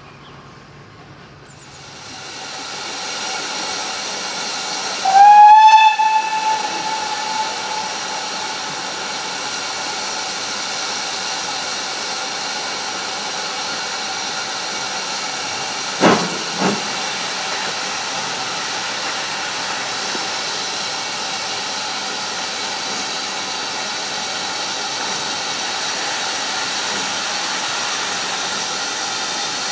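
Steam locomotive letting off steam in a steady hiss that starts about a second and a half in, with one whistle blast of about two seconds about five seconds in. Two sharp knocks come about sixteen seconds in.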